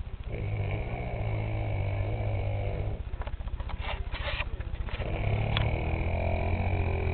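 A sleeping man snoring loudly: two long, low, rattling snores a couple of seconds apart, with a short burst of hissing noise in the gap between them.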